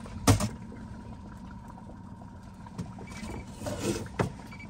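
Outboard motor running steadily at trolling speed, a low even hum. A sharp knock sounds about a third of a second in, with lighter rattles and another knock near the end.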